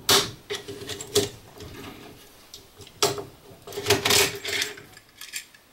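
Sharp plastic clicks and knocks as a fuse holder is worked loose and unclipped from a DIN rail by hand, with a cluster of clicks about four seconds in.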